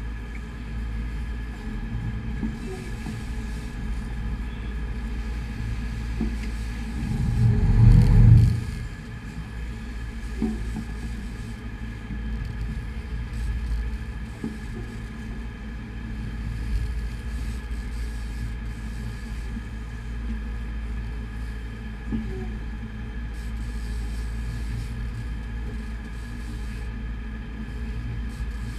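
Sportfishing boat's engines running with a steady low rumble. About seven seconds in, a louder surge builds for a second or so, then drops off sharply.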